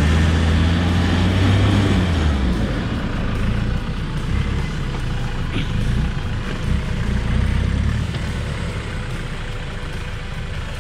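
Land Rover Defender 110 driving slowly through snow on mud-terrain tyres: the engine hum is strongest in the first couple of seconds, then eases as it moves past, with the tyres pressing and churning through the snow.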